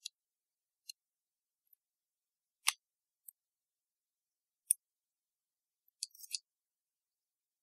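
Small metal clicks from pliers working the coil on a rebuildable atomizer deck while the coil is being tightened: about eight sparse, separate clicks, the two sharpest about a third and two thirds of the way in, and a quick little cluster near the end.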